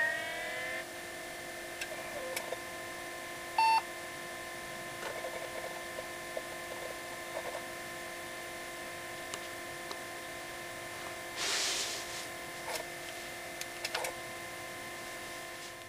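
Toshiba T1200 laptop booting: a whine that has just risen to pitch holds steady, with a short beep about four seconds in. Scattered drive clicks and a short burst of noise near twelve seconds come over the steady whine.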